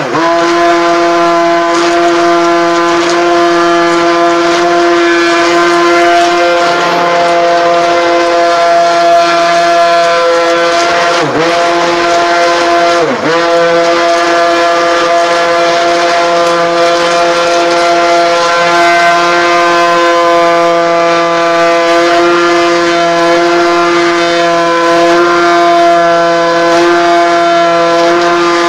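Electric stick blender running steadily in raw soap batter, a constant high motor whine. Twice, a little before halfway, the motor briefly slows and then picks back up.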